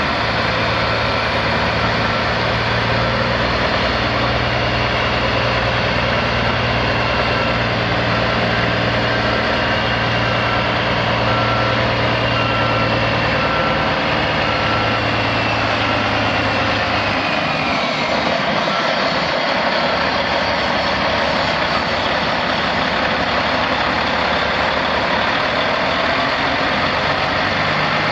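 Caterpillar 3406E six-cylinder diesel in a Peterbilt 379 semi truck, running steadily at idle. A short beep repeats about once a second through the first two-thirds, and a high whine falls away at about the same point.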